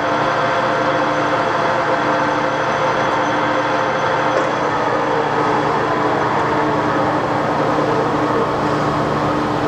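A 1984 Toolmex-Andrychow TUG-40 gap bed engine lathe running steadily with its spindle in the high speed range: an even machinery hum with steady whining tones from the geared headstock, described as very quiet.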